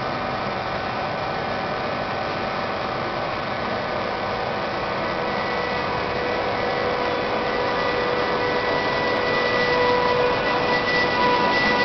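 VR Sr2 electric locomotive (Re 460 type) pulling an InterCity train away: a steady hum of its running gear and equipment, with a whine of several even tones that comes in about five seconds in and grows stronger. The sound slowly gets louder as the locomotive draws near.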